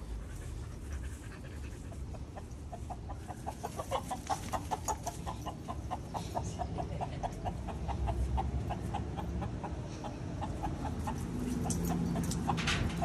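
A chicken clucking in a long, rapid run of short calls, about five a second, with a husky panting close by and one louder cry near the end.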